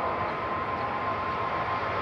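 Jet airliner engines: a steady rushing noise with a high steady whine over it, growing louder just after.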